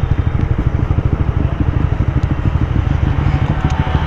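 A motorcycle on the move: a heavy, fluttering wind rumble on the microphone with the engine running underneath.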